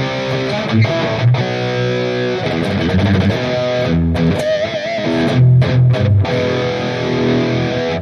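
Electric guitar playing a heavily distorted, high-gain rhythm riff through a digital amp-modeling unit, with chugging low chords throughout.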